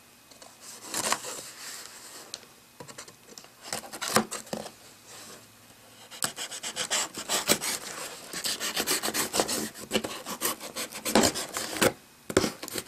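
A dull knife blade sawing and scraping along packing tape on a cardboard box seam, in many short strokes that come faster and denser about halfway through.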